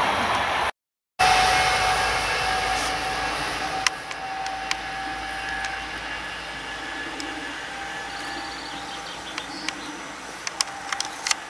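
Rail noise of a train fading away, then after a short break a fainter steady hum and whine from an electric multiple unit approaching on the line. A few sharp clicks come near the end.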